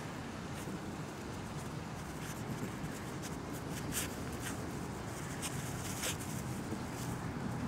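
Grass rustling as a silky terrier puppy noses through a lawn close to the microphone, with a few short, sharp scratchy rustles over a steady hiss.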